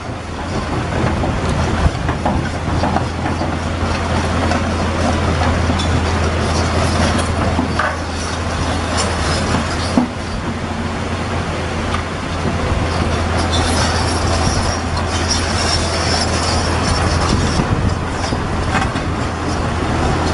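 Komatsu PC210 Avance excavator travelling on its steel crawler tracks: the diesel engine runs steadily under the clatter of the track links, with a few clunks and a high squeal from the tracks that grows stronger past the middle.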